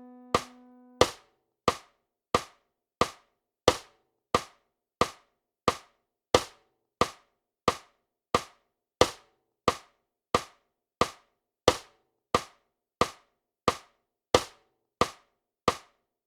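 Notation-software metronome clicking at about 90 beats a minute, every fourth click accented, while the last held note of the melody playback dies away about a second in.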